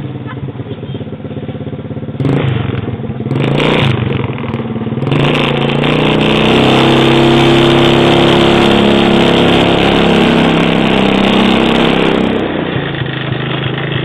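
Small 110 cc ATV engine idling, then revving up about two seconds in and running hard at higher revs before easing off near the end.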